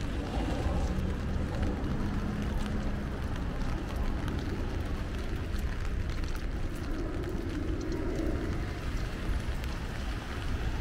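Steady rain falling over a constant low city rumble.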